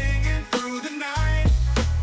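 Background music: a song with a melody line over heavy bass notes and drum hits.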